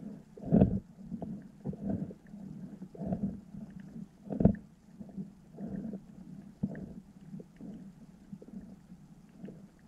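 Underwater sound picked up by a submerged camera: irregular low thumps and rumbles, with two louder knocks about half a second and four and a half seconds in, and faint scattered clicks.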